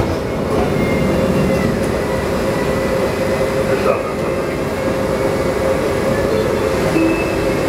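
Interior running noise of a 1983 Budd-built Miami Metrorail rapid-transit car: a steady rumble with a constant whine held at one pitch.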